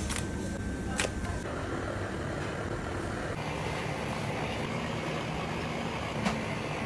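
Steady background hum of a commercial kitchen, with a few short clicks, one about a second in and one near the end.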